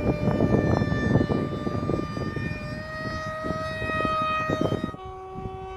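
Electric motor of a radio-controlled Su-47 model plane whining steadily in flight, its pitch dropping suddenly about five seconds in. Strong wind buffets the microphone throughout.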